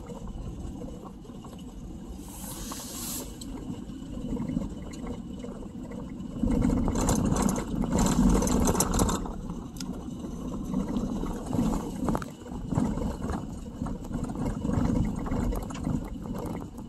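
Car driving on a gravel road, heard from inside the cabin: a steady rumble of tyres on gravel with a hissing wind noise and scattered small crackles, growing louder about six and a half seconds in.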